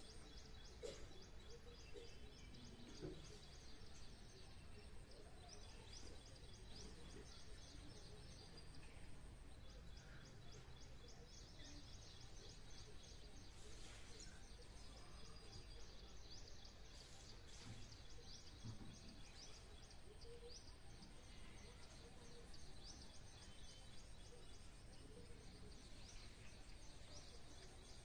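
Faint outdoor ambience with small birds chirping in quick repeated runs and a thin steady high tone in the background.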